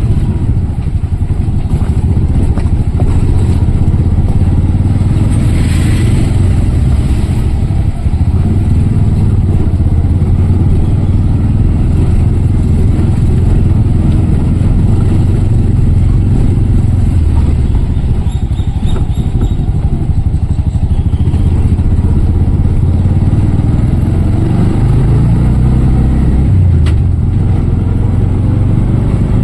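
Auto-rickshaw's small engine running, a steady low rumble with road noise that stays constant, briefly changing pitch near the end.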